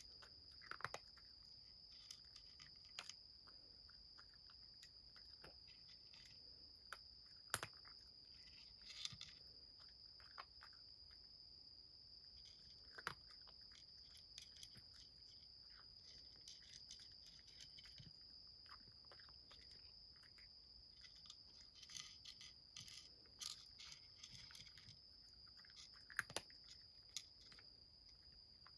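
A cat crunching dry kibble from a wooden tray, faint irregular crunches and clicks a second or so apart, over a steady high-pitched tone.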